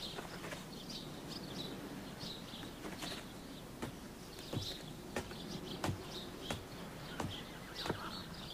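Faint birds chirping over quiet outdoor background noise, with scattered sharp clicks or knocks at irregular intervals, roughly one or two a second.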